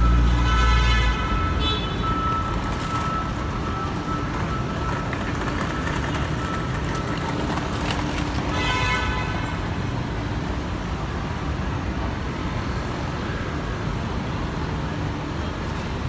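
City road traffic: a steady hum of passing cars, with a vehicle rumbling close by in the first second.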